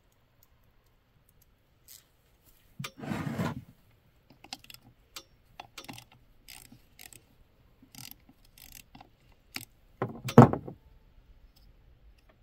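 Small metal clicks and scrapes of hand tools working on a Poulan Pro chainsaw's muffler, with two louder clatters, one about three seconds in and one about ten seconds in.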